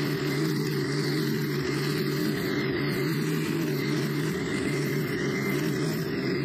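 Stihl FS90R string trimmer's 4-MIX four-stroke engine running steadily at working speed as the nylon line cuts through tall grass.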